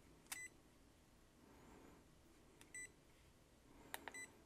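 FNIRSI DSO153 handheld oscilloscope's push buttons pressed three times, each press a small click followed by a short, faint, high electronic beep from the scope as the arrow keys adjust the display.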